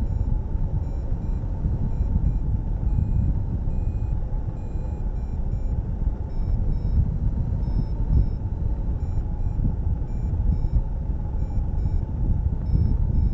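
Wind buffeting the microphone of a camera on a hang glider in flight, a steady gusty rumble, with a flight variometer's short electronic beeps sounding faintly and irregularly over it.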